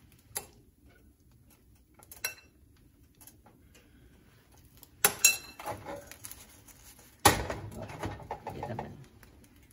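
A metal utensil clinking and knocking against a pan and bowl while shrimp and pork filling is spooned in. There are a few separate strikes, some with a brief metallic ring. The loudest come about five and seven seconds in, the last followed by a second or so of scraping and handling noise.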